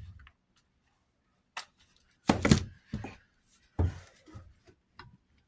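Knocks and clicks from parts being handled as a capacitor is fitted into a ceiling fan's switch housing, the loudest two thuds about two and a half and four seconds in.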